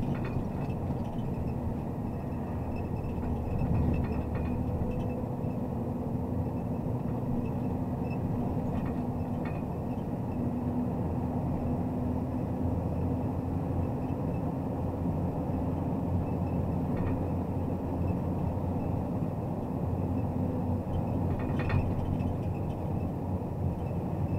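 Diesel engine of a MAZ Zubr truck crane running steadily on the road, a constant drone mixed with road noise, with a few light clicks or rattles now and then.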